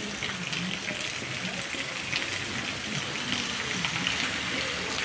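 Heavy rain falling steadily: a dense, even hiss dotted with many small drop splashes.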